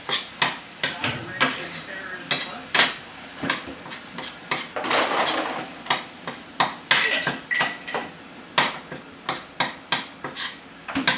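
A spatula knocking and scraping against a frying pan as ground turkey is chopped up and stirred while browning: irregular sharp taps, one to two a second, with a longer scrape about five seconds in.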